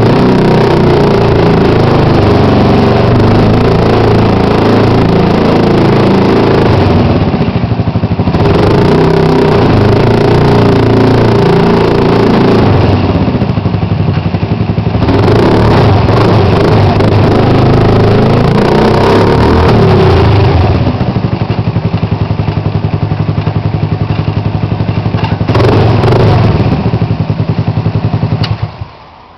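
Suzuki Burgman 125 scooter's single-cylinder four-stroke engine, with a growling exhaust note, revved up and down several times, then settling to a steadier idle with one more blip before it is switched off just before the end.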